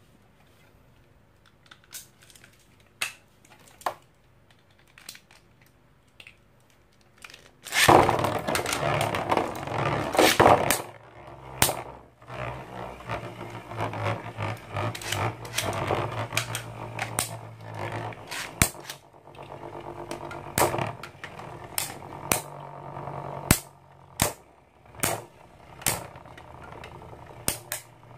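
A few scattered clicks, then about eight seconds in two Infinity Nado metal-ringed spinning tops hit a clear plastic arena at the launch. They spin, scraping and rattling on the plastic floor with a steady low hum, and clack sharply again and again as they collide.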